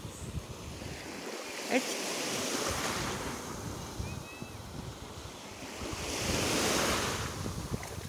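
Small sea waves washing up onto a sandy shore, the wash swelling twice, about two seconds in and again near the end, with wind buffeting the microphone.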